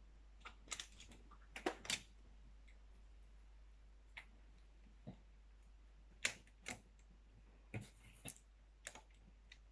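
Magnetic building blocks clicking together as they are stacked, about a dozen faint, sharp clicks spaced unevenly.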